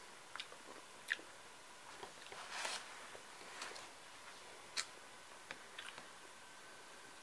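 Faint eating sounds: chewing with a scattering of small sharp clicks, and a short rustling noise about two and a half seconds in.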